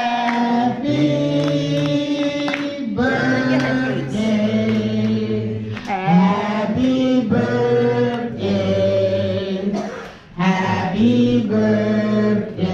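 A group of voices singing a birthday song together without accompaniment. Long held notes are broken by short pauses between lines.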